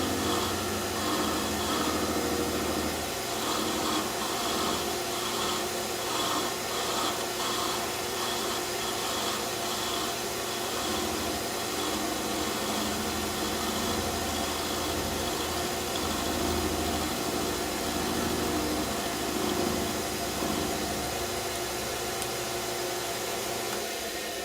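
Metal lathe running steadily while a high-speed steel tool cuts a taper into the forged steel tang of a chisel.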